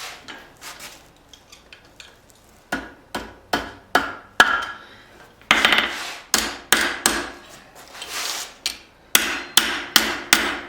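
Blacksmith's hammer striking hot spring steel on an anvil, opening up the knife's wraparound handle loop. A few light taps, then groups of ringing blows that come faster near the end.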